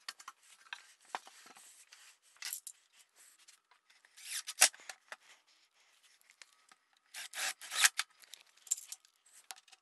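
Cordless impact driver driving screws into wood in two short runs, about four seconds in and again near eight seconds, with light clicks of hands and parts being handled between them.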